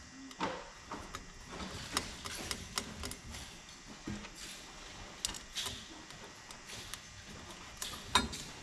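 Scattered light clicks and knocks of hands working on small hardware, such as a switch box, cover and screws, with one louder knock near the end.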